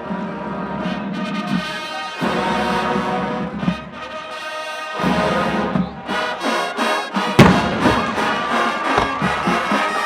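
A college marching band's brass playing loud sustained chords with heavy low brass, and a sharp percussion hit about seven seconds in.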